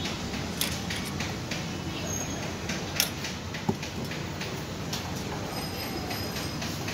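Scattered light clicks and clinks of a metal bowl and spoon being handled while grated coconut is put onto putu, the sharpest about three seconds in, over a steady rushing background noise.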